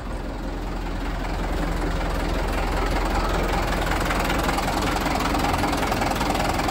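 Diesel engine of a Mitsubishi Fuso Canter truck idling steadily.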